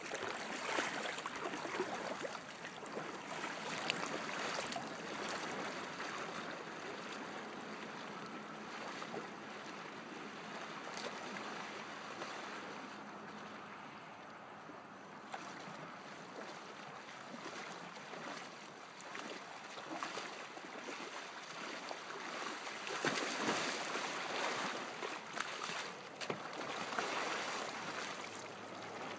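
Kayak paddle strokes splashing and lake water lapping. It is louder for the first few seconds and again from about 23 seconds in, with quick sharp splashes from the paddle blades.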